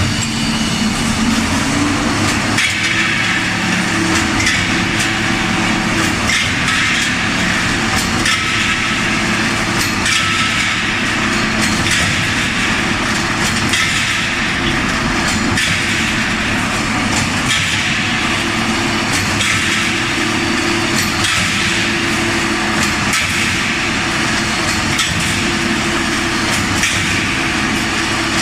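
Automatic CNC rebar straightening machine running: a steady motor hum that rises in pitch just after the start as it comes up to speed, with metallic clattering and clicking that repeats in a pattern every couple of seconds.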